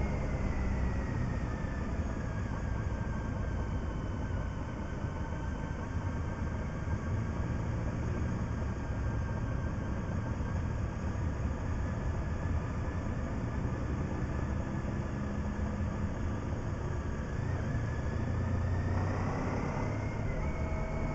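Motorcycle engine running while riding, over a steady low rumble of wind and road noise. The engine note falls as the bike eases off near the start and rises again as it speeds up near the end.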